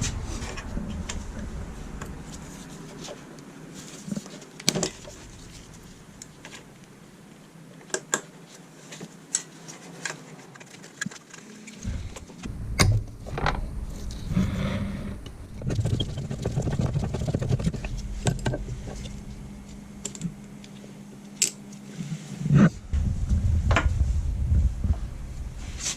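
Scattered sharp clicks and metallic clinks of hand tools on bolts, from an allen key and other tools working loose the master cylinder bolts. Low rumbling handling noise runs between them, with a steady low hum through the middle.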